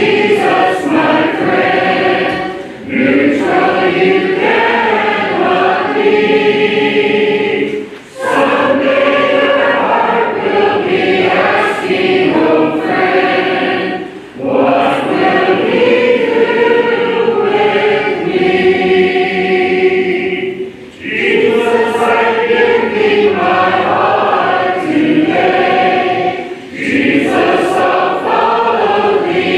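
Church congregation singing a hymn a cappella, men's and women's voices together, in phrases of about five to six seconds with a short break for breath between lines.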